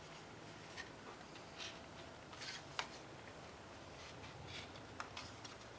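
Faint scattered plastic clicks and rubbing as a plastic paddle stir stick is pushed through a Mixing Mate paint-can lid.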